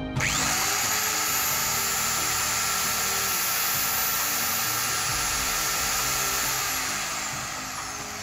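Parkside PDFS 1300 A1 diamond stone cutter's electric motor is switched on and comes up to speed at once, running with a steady high whine. About six and a half seconds in it is switched off and winds down with a falling whine. This is a test run on its newly replaced ball bearing, after the old bearing broke.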